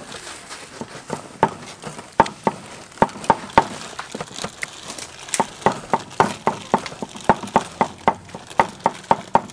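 Repeated sharp knocks, a few a second, coming faster and more evenly in the second half.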